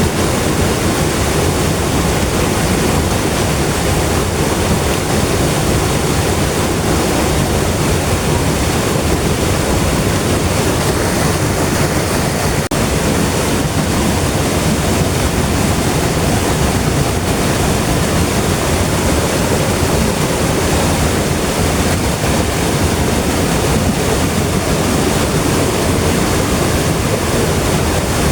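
River water rushing steadily over rocks, a constant full rushing noise with no breaks.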